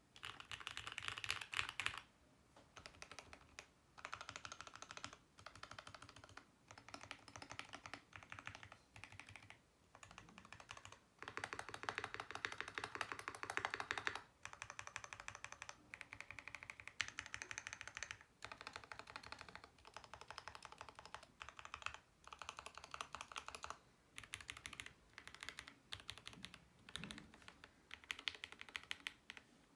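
Typing on a Mode Eighty mechanical keyboard with lubed C³ Tangerines 67g linear switches, GMK keycaps and an aluminium plate: rapid runs of keystrokes in bursts of a few seconds, broken by short pauses.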